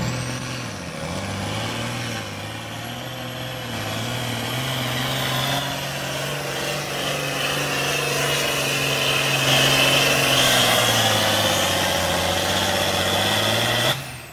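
John Deere super field pulling tractor's turbocharged diesel engine running hard under load as it drags the weight-transfer sled, with a high turbo whine above it. The engine pitch sags briefly about a second in, holds through the pull, then falls away near the end as the pull finishes.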